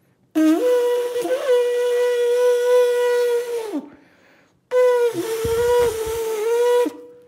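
A person blowing two long, steady horn-like notes through a clear plastic drain hose, the first about three seconds, the second about two, with a short break between.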